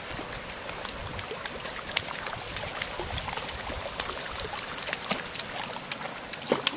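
Feet splashing and sloshing while wading through shallow creek water over rock, with many small irregular splashes over the steady trickle of the stream. Near the end a goose starts to call.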